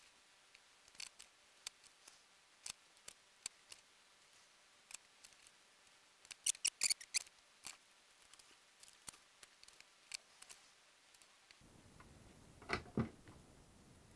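Faint, scattered clicks and taps of small metal parts being handled while soldering wires onto a DIN plug held in a clamp. A quick run of louder clicks comes about halfway through, and two duller knocks near the end.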